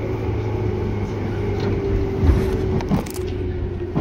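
Tobu 10030 series electric train running, heard from inside the car: a steady rumbling hum with a steady tone above it, and a couple of sharp knocks about two and three seconds in.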